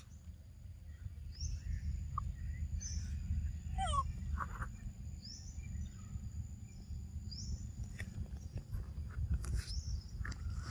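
Outdoor ambience with short high bird chirps about every two seconds over a steady high insect drone and a low rumble. One louder sweeping call comes about four seconds in.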